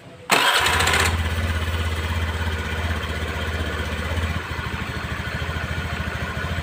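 Honda Spacy scooter's single-cylinder four-stroke engine starting with a short burst about a third of a second in, then idling with its CVT cooling fan removed. It runs smooth, without the klak-klak clacking, which shows the rough noise came from the fan's worn, loose mounting boss. The idle settles slightly lower about four seconds in.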